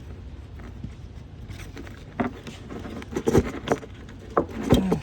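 Metal clinking, clicking and rattling as tools and electrical hardware are handled during wiring work, starting about two seconds in, with the loudest knocks past the middle and just before the end.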